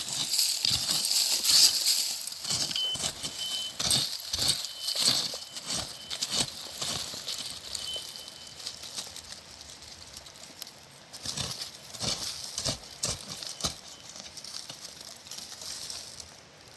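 Digging into forest soil and leaf litter by hand to unearth a root: irregular scrapes and knocks with rustling, busiest in the first half and again about two-thirds of the way through.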